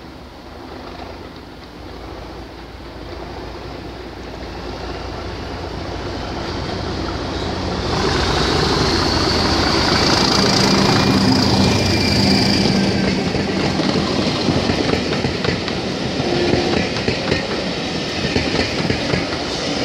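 Class 37 diesel-electric locomotive with its English Electric V12 engine, approaching and passing with a train of coaches. The engine grows louder for the first eight seconds, with a high whistle over it as the locomotive goes by. The coaches' wheels then clatter over the rail joints.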